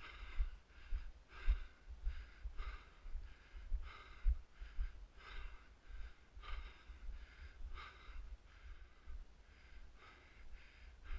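A person breathing hard in short, repeated breaths while walking uphill on grass and pine needles, with low footfall thumps.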